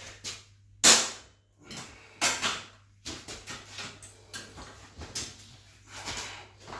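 Hammer blows on a bicycle part, with one loud strike about a second in, two more strikes a little later and several lighter knocks after them.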